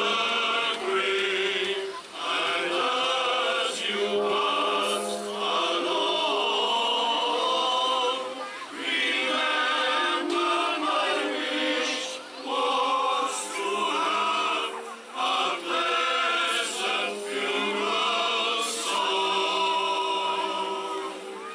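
Male voice choir singing long held chords in phrases broken by short pauses every one to three seconds; the singing fades near the end.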